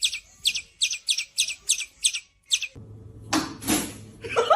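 Birds calling angrily, a rapid run of sharp, high chirps about four a second that stops about two and a half seconds in. After it come a few short rushing noises and a brief wavering tone.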